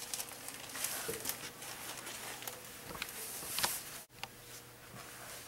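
Clear plastic evidence bags being handled and sealed, with irregular crinkling and small clicks, loudest just before a sudden break about four seconds in. After the break there is quieter room sound with a few faint rustles.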